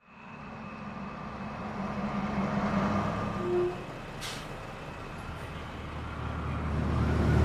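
City bus pulling up to a stop, its engine running with a low hum, and a short air-brake hiss about four seconds in. The engine hum grows louder near the end.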